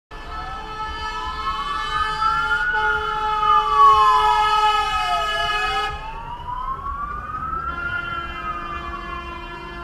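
Fire engine siren in slow wail mode, its pitch rising and falling about every five seconds. It is loudest about four seconds in and becomes quieter and duller about six seconds in.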